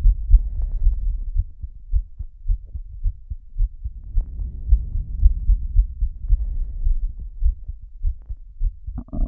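Heartbeat heard up close as a steady run of low thumps, with heavy breathing swelling in and out over it.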